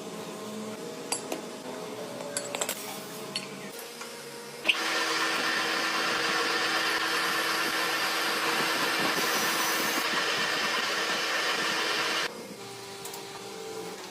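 Light metal clinks of tools being handled, then a power tool switched on about a third of the way in. Its motor runs steadily at a constant pitch for about seven and a half seconds and cuts off suddenly.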